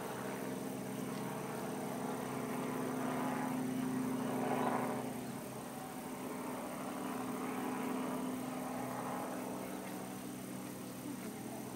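Steam-hauled passenger train standing at the station, giving a steady low hum with several pitches held throughout. A swell of noise rises and falls about four and a half seconds in.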